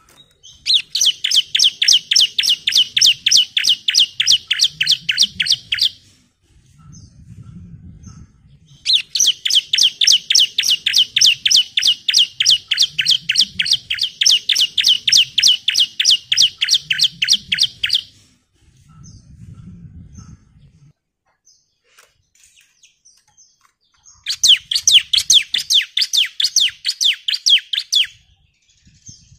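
Bar-winged prinia (ciblek) singing in three long bursts of rapid, evenly repeated high notes. This is the long rattling 'nembak' song of an excited bird.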